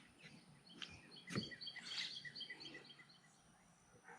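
A bird calling faintly: a quick run of short high chirps, about eight a second, lasting under two seconds. A single faint knock sounds just as the chirps begin.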